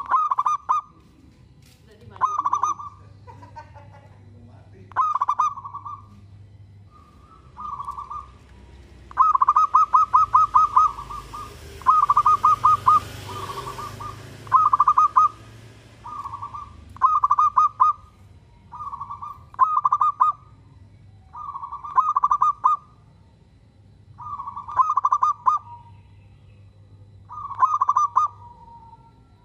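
Zebra dove (perkutut) cooing: short phrases of rapid staccato notes repeated every two to three seconds, with a longer, denser run around ten seconds in.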